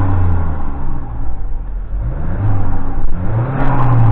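Mazda CX-9's turbocharged 2.5-litre four-cylinder engine being revved, running with a JB4 piggyback tune. The revs fall away about a second in and climb again twice, with a short hiss near the end as they peak.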